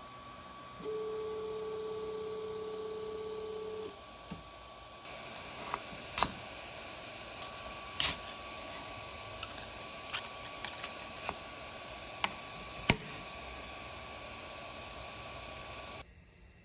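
Creality Ender 3 V2 3D printer giving a steady pitched tone for about three seconds, over a faint steady whine. Then a scraper is worked under the finished print on the glass bed, making a series of sharp clicks and taps as the part pops free.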